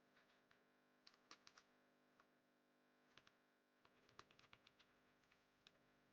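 Very faint computer keyboard keystrokes: a few scattered taps in small clusters, the busiest run a little past the middle.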